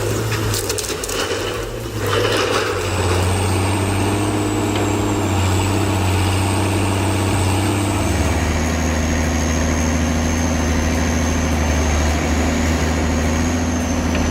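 An engine running steadily with a low hum. There are knocks and clatter in the first two seconds, and the hum shifts slightly lower about eight seconds in.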